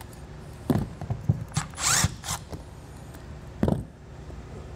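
Cordless drill/driver and loose screws being handled after the vent-cap screws are backed out: scattered clicks and rattles, then a single heavier thump about three and a half seconds in as the drill is set down on the roof.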